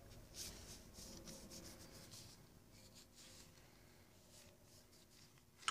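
Near silence, with a few faint rubbing and handling sounds in the first couple of seconds as gloved hands turn over an outboard engine piston.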